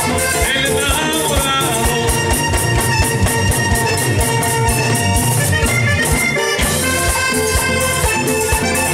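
Live vallenato: a button accordion plays the melody over a steady beat, with the rhythmic scraping of a metal guacharaca.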